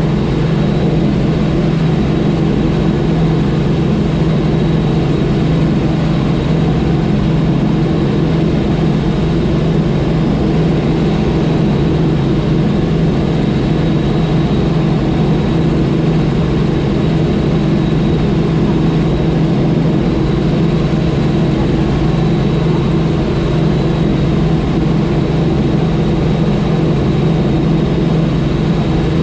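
Light helicopter in cruise flight heard from inside the cockpit: the engine and rotor drone runs steady and unchanging, with a faint high whine above it.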